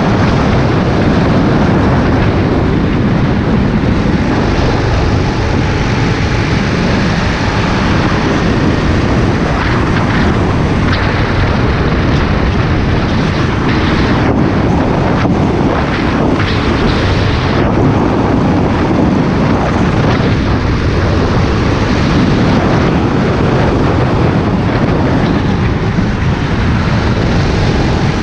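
Go-kart engine running steadily at racing speed, heard from a camera mounted on the kart, mixed with loud wind buffeting on the microphone.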